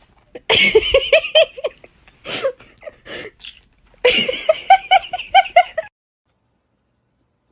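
Laughing in two bursts of quick, pitched ha-ha-ha pulses, with a short fragment between them. The sound cuts off to dead silence about six seconds in.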